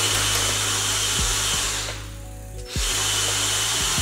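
Cordless drill mounted on a bicycle frame running and spinning its drive shaft, in two bursts of about two seconds each with a short pause between them. Background music plays underneath.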